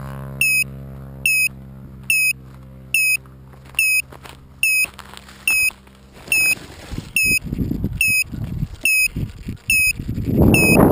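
Electronic beeper on a crashed foam RC plane giving short high beeps about once every 0.85 s, over a low hum that fades out about six seconds in. Footsteps crunch through dry grass as someone walks up, and the plane is picked up with loud rustling and handling noise near the end.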